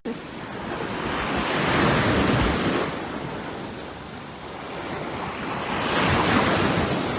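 Waves washing in: a rushing noise that swells and fades twice, about four seconds apart.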